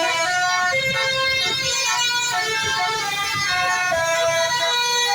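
Bus's basuri telolet multi-tone horn playing a melody, its chord of tones stepping from note to note about every half second.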